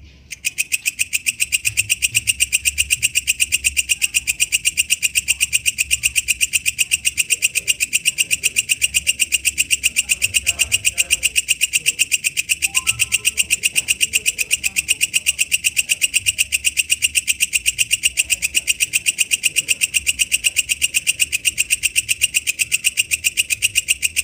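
Walang kecek katydid calling: a loud, fast, even train of high-pitched clicking pulses that starts abruptly just after the beginning and keeps going without a break.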